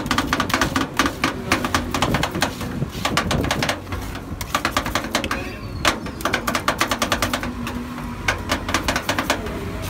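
Metal spatulas scraping and clicking rapidly against the steel cold plate of a rolled ice cream pan as the ice cream is spread thin. The clicks come in quick runs, with a pause of about two seconds near the middle, over a low steady hum.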